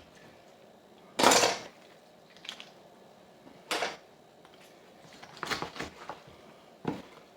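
Kitchen knocks and clatter on a cutting board while a chicken is cut up: a handful of separate clunks, the loudest about a second in, with a quick run of smaller taps a little past halfway.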